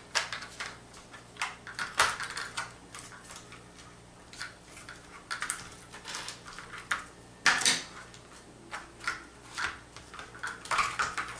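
Irregular plastic clicks and knocks from hands working on an RC truck's chassis while taking out its hard-case LiPo battery pack. The sharpest knocks come about 2 seconds in and about 7 and a half seconds in.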